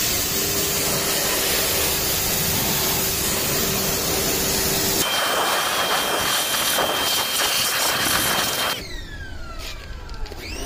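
Pressure washer spraying a wheel: the machine runs with a steady hum under the loud hiss of the jet, and the spray sound changes about halfway through as the jet moves across the wheel. Near the end the spray stops and a falling whine follows as the machine winds down.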